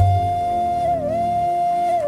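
Meditative music: a flute-like melody holding one long note that dips briefly in pitch about a second in, over a low drone.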